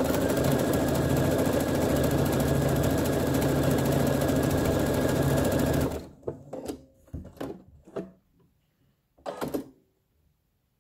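Domestic sewing machine running steadily at speed, stitching a row across fabric pieces on water-soluble film, then stopping suddenly about six seconds in. A few light knocks and clicks follow as the work is handled.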